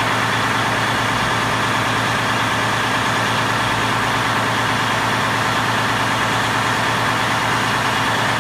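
Detroit Diesel DD15 inline-six heavy-truck diesel engine running steadily, parked, while a forced DPF regeneration is under way.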